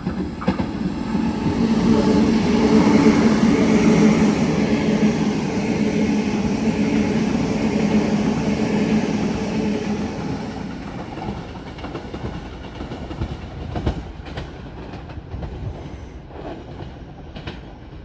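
Sydney Trains Waratah electric multiple unit passing through the station: a rumble with a steady hum that swells over the first few seconds, holds while the carriages go by and then fades. Near the end there are a few sharp clacks of wheels over rail joints.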